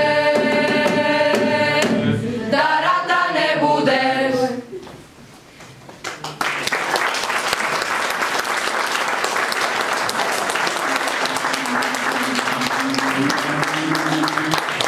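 Mixed choir of teenage voices singing a slow piece that ends about four and a half seconds in. After a brief pause, an audience breaks into sustained applause.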